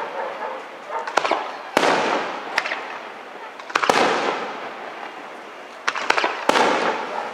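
Aerial firework shells bursting overhead: about half a dozen sharp bangs, each fading away over a second or two, the three loudest about two seconds apart.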